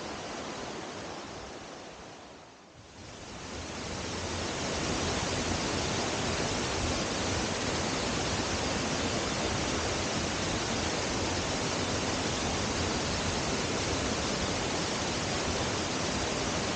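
Waterfall on a small stream: a steady rush of falling water. It fades down briefly about two and a half seconds in, then comes back steady and a little louder.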